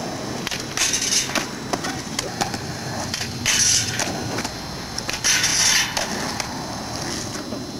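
Skateboard wheels rolling on concrete, with sharp clacks of the board and three short scraping sounds of about half a second each.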